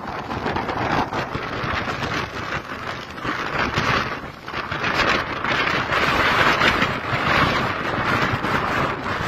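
Strong storm wind buffeting the microphone over heavy surf breaking on the shore, in gusts that rise and fall.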